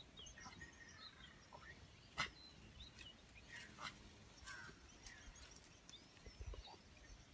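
Near silence, with faint scattered bird chirps and a few soft clicks.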